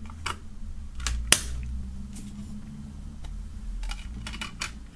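CDs being pressed back onto the plastic centre hubs of a multi-disc DVD-style case: a series of sharp plastic clicks and snaps, the loudest about a second and a quarter in, with a quick run of clicks near the end.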